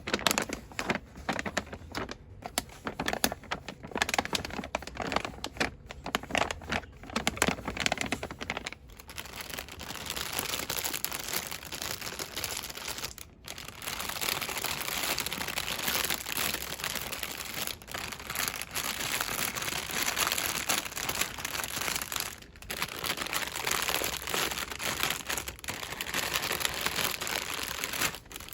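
Fast crinkling and rustling of cosmetics packaging handled with the fingers. For the first several seconds it is sharp taps and crackles; after that it turns into continuous dense crinkling with a few brief pauses.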